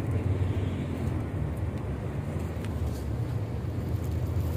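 Steady low drone of an intercity coach's engine and road rumble, heard inside the passenger cabin while it drives.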